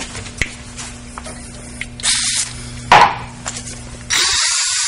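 Power drill running a Drill N' Tap combination bit through metal: a steady low hum with scattered clicks and one sharp click about three seconds in. Just after four seconds a loud steady hiss starts abruptly.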